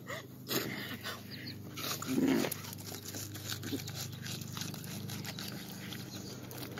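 People eating watermelon slices fast: wet biting, slurping and chewing with scattered small clicks. A brief loud vocal sound, like a grunt, comes about two seconds in.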